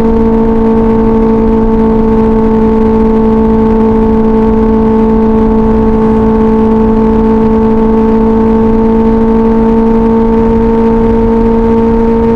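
2024 Kawasaki Ninja ZX-6R's inline-four through an SC Project exhaust, running at steady revs under way, its pitch held constant.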